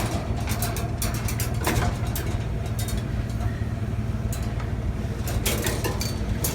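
A vehicle engine idling steadily, with a few short sharp clinks of metal, typical of wire tomato cages being handled and loaded.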